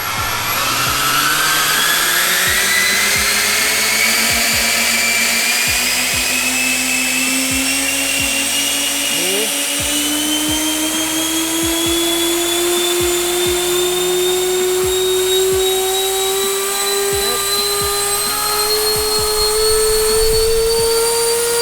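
Twin electric ducted fans spooling up under a slowly opening throttle during a static thrust test: a loud whine that climbs steadily in pitch throughout.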